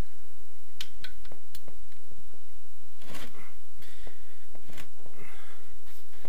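Sharp metallic clicks and knocks of a breaker bar, extension and socket working on the crankcase bolts of a Honda VFR800 engine as they are broken loose, the loudest knock about three seconds in.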